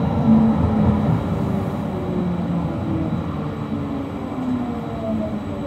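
Siemens Combino low-floor tram running on its track, heard from the driver's cab: a steady rolling rumble with several humming tones from the electric drive. Near the end one tone falls steadily in pitch.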